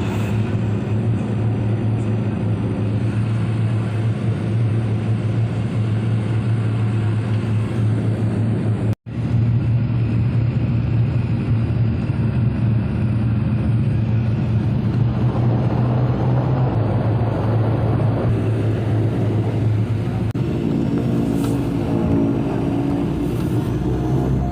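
Aircraft engines heard from inside the passenger cabin: a loud, steady drone with a strong low hum. It cuts out for an instant about nine seconds in.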